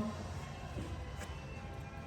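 Faint background music over a low steady hum, with a single light click a little over a second in.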